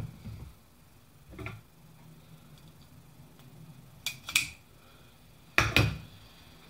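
Tools and parts being handled on a workbench: a few separate sharp clacks and knocks, the loudest two close together about five and a half seconds in.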